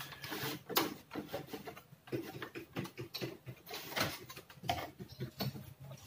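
Plastic wire connectors being unplugged and a television's chassis circuit board being handled and lifted out: irregular clicks, light knocks and rustling of wires against the board.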